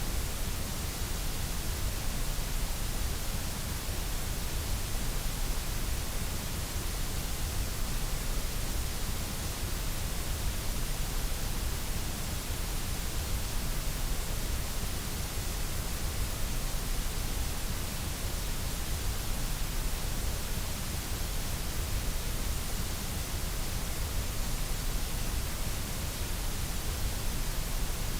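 Steady generated white noise: an even, unbroken hiss with no changes, its energy heaviest in the deep low end and the highs.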